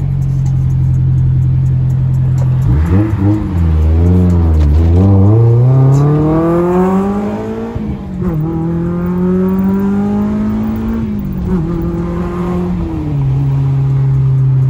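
Car engine heard from inside the cabin: a steady note, then from about three seconds in the revs wobble and climb under acceleration. The pitch drops sharply at a gear change about eight seconds in, climbs again, then eases back to a steady drone near the end.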